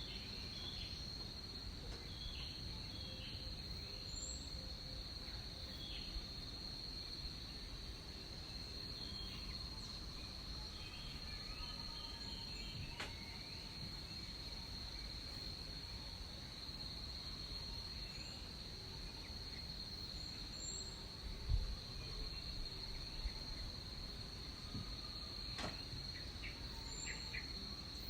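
Tropical rainforest ambience: a steady, high-pitched insect drone with scattered short bird chirps over a low rumble. A brief thump sounds about two-thirds of the way through.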